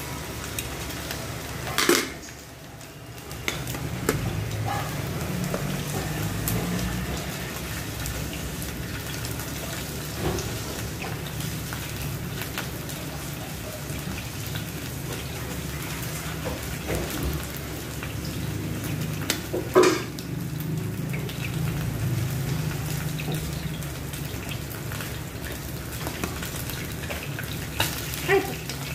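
Flour-coated chicken pieces shallow-frying in oil in a nonstick frying pan: a steady sizzle, broken by a few short clatters of utensils, the loudest about two-thirds of the way in.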